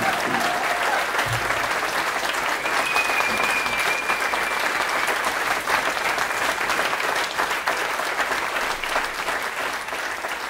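Audience applauding steadily, many hands clapping together, easing off a little near the end.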